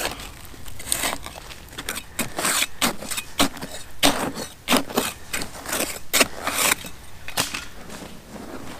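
Digging in soil: a blade repeatedly cutting and scraping into earth, in irregular strokes a few a second.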